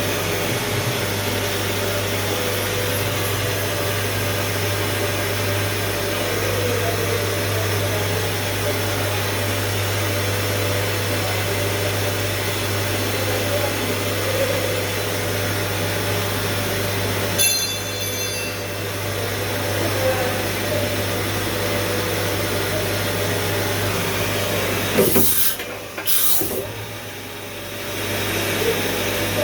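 Doosan T 4000 CNC machine running with a steady mechanical hum. A short burst of clicking and ringing comes about halfway, and two sharp high hisses come near the end.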